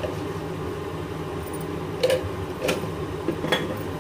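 A wooden spatula knocking a few times against a non-stick frying pan of mashed roasted eggplant as stirring starts, over a steady low background hum.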